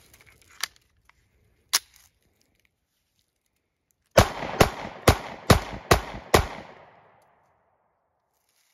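Taurus GX4 9mm pistol being loaded with two sharp clicks, then fired six times in quick succession, about two or three shots a second, with Hornady Critical Defense hollow-point rounds.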